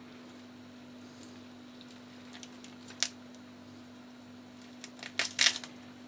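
A knife cutting through a tiger prawn on a plate, giving one sharp crunch about three seconds in and a quick run of crunches near the end, over a steady low hum.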